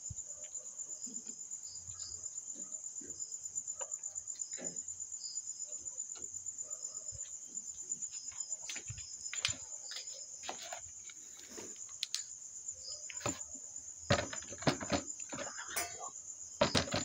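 Crickets chirring in a steady, rapidly pulsing high trill, with scattered knocks and rustles that grow louder and more frequent in the last three seconds.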